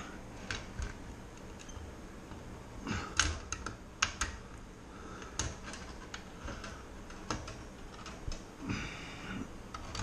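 Irregular light metallic clicks and rattles of a Liftmaster garage door opener's roller drive chain being worked by hand onto its sprocket, with a cluster of louder clicks about three to four seconds in.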